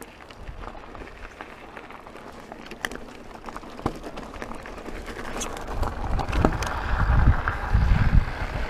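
Santa Cruz Megatower mountain bike rolling over a gravel trail: tyres crunching on loose stones, with scattered small ticks and rattles from the bike. Wind buffeting the microphone comes in about halfway through and grows louder toward the end.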